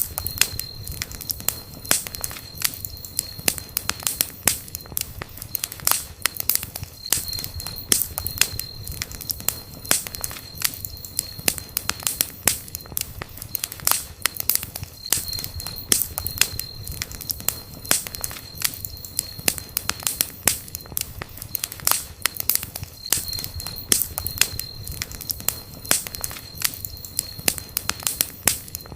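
Wood campfire burning, crackling with dense, irregular sharp pops and snaps over a low steady rumble. A thin high whistle comes and goes every several seconds.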